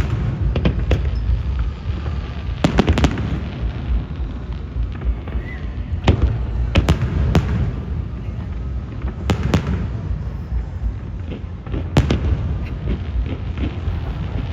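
Aerial fireworks going off in a rapid, irregular series of sharp bangs and booms, with a continuous low rumble of bursts beneath them.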